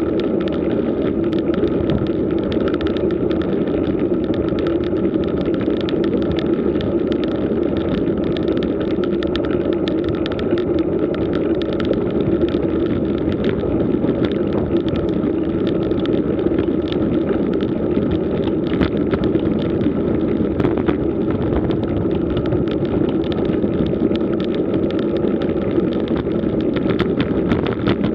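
Steady rushing road noise from a road bike climbing slowly: tyres rolling on coarse asphalt mixed with wind on the bike-mounted camera's microphone, muffled and without breaks.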